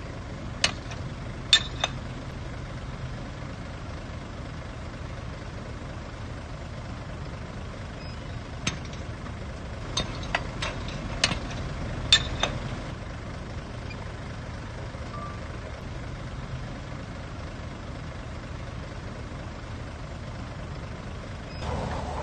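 Heavy diesel earthmoving machinery running steadily at a low hum, with scattered sharp metallic clanks: a few in the first two seconds and a cluster around ten to twelve seconds in.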